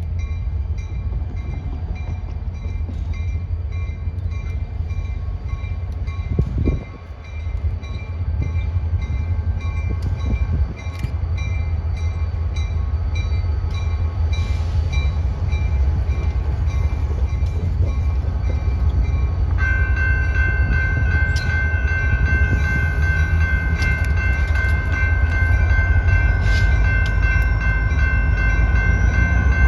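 A train running close by with a heavy low rumble that grows louder towards the end. Thin steady high tones sound over the first two-thirds, then a stronger steady high-pitched tone starts about two-thirds through and holds.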